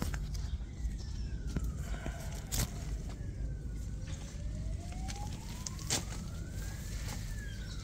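A faint siren wailing slowly: its pitch falls for about three seconds, climbs back up and starts to fall again near the end. Under it is a steady low rumble on the microphone and a few sharp clicks.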